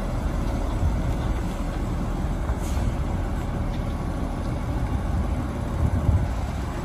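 Water tanker truck's engine idling, a steady low rumble.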